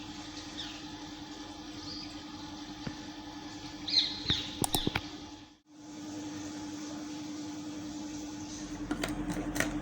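Outdoor ambience with a steady hum and noise haze, short bird chirps in the first half, and a few sharp clicks about halfway through and again near the end.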